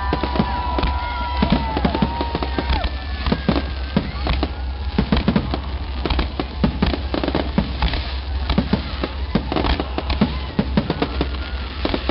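Fireworks display: a dense string of bangs and crackling bursts, with high whistles from whistling shells through the first three seconds.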